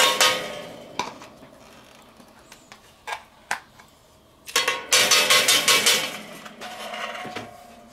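Metal grill tongs scraping and clattering across a griddle plate on a kettle grill, spreading a dab of clarified butter. There are two scraping bouts, one at the start and a longer one about halfway through, with a few light clicks between them.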